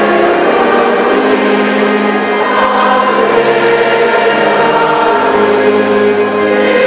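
Church choir singing sacred music in several parts, with slow, held chords.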